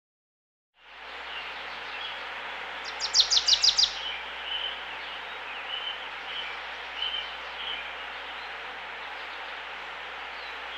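A brook running steadily, with birds singing over it. The water fades in during the first second; about three seconds in, a bird gives a loud, rapid trill of about eight notes, followed by scattered short chirps.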